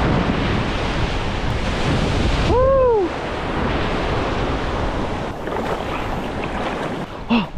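Ocean surf breaking and washing around a rock in the shallows, a loud, steady rush that eases a little about three seconds in.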